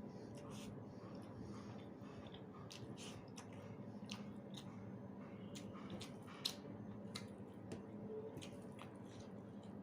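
Close-up eating sounds: wet chewing and small mouth clicks while eating rice with dal and egg, with one sharper click about six and a half seconds in.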